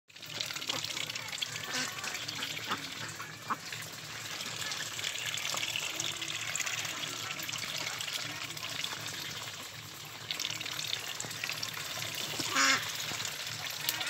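A flock of ducks dabbling and slurping in a basin of watery feed: continuous wet splashing and crackling from many bills, with a few short quacks and a louder burst of splashing near the end.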